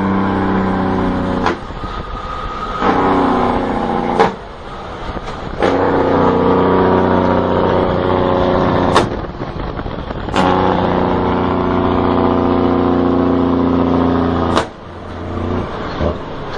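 A vehicle engine running hard, its steady drone broken about five times by a sharp crack and a short dip in level before it pulls again.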